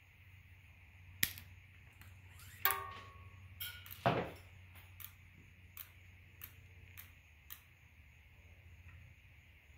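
Sharp metal clicks and taps from handling and threading a steel bicycle brake cable through the brake hardware. The loudest come in a cluster between one and four seconds in, one with a brief metallic ring, followed by lighter ticks about every half second, over a steady low hum.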